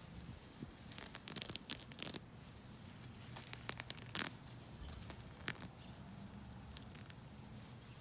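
Weeds being pulled up by hand: irregular short rips and crackles of stems and roots tearing loose from the soil. They come in a quick cluster about a second in, a few more around the middle, and one near the end.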